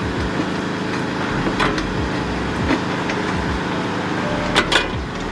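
A hand ratchet being worked to tighten a brace fitting, giving a few separate sharp clicks, two close together near the end. Under them runs the steady hum of the workshop.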